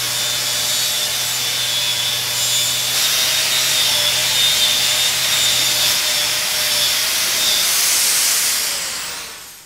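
Angle grinder with a Norton Vortex Rapid Prep flap disc running against the steel of an air tank, blending down a weld seam: a steady high-pitched grinding with a thin whine over it, dying away near the end.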